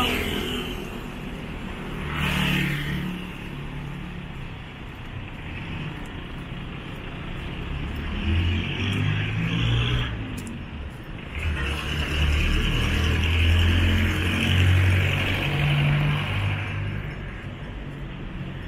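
Road traffic passing close by on a city street: cars and motorcycles going past one after another, their engine and tyre noise swelling and fading, with the loudest stretch in the second half.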